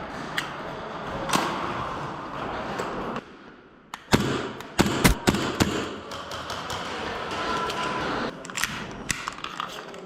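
Airsoft guns firing: a few scattered sharp cracks, then a quick cluster of shots about four to five and a half seconds in.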